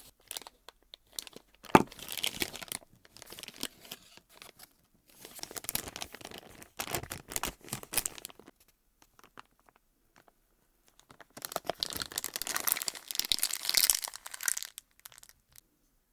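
Slime being squeezed and stretched by hand close to the microphone: crackly, clicking handling noise in three bursts, with a sharp click about two seconds in.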